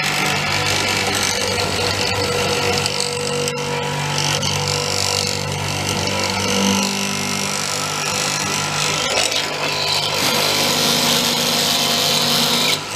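Multico K/3 hollow-chisel mortiser running, its square chisel and auger boring into very hard wood: a steady motor hum under a rasping cutting noise that grows louder at times.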